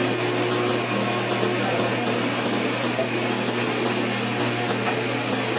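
Sliding table saw running idle, its blade spinning with no cut being made: a steady machine hum.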